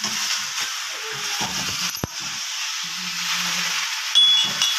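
Snake gourd sabzi frying in a pan over a wood fire: a steady sizzling hiss, with a sharp click about two seconds in.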